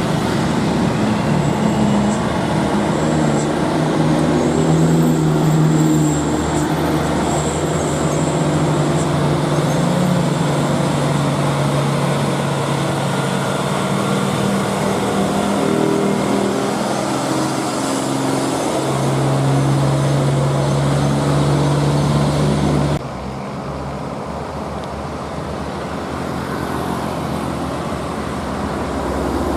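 Old diesel truck engine running, its pitch rising and falling with the throttle, then holding level. About 23 seconds in the sound drops suddenly to a quieter engine and road noise.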